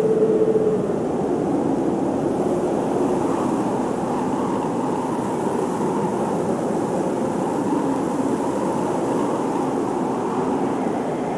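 Blizzard wind blowing steadily, with a low howl that wavers in pitch and swells briefly near the start.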